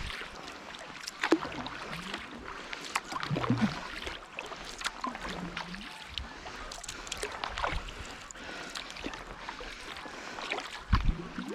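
Sea kayak paddle strokes on a calm sea: the blades dipping and splashing at irregular intervals, with water trickling and gurgling between strokes.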